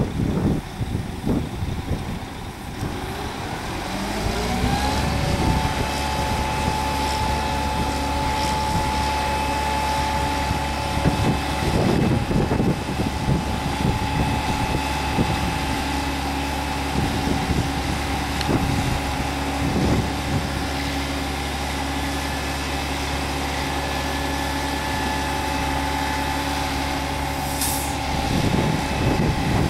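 A diesel truck engine revs up a few seconds in and holds steady at raised revs, with a steady whine, while it powers a multilift's hydraulic arm winching a full sugar cane bin up onto the trailer. A short hiss and a change in the engine note come near the end.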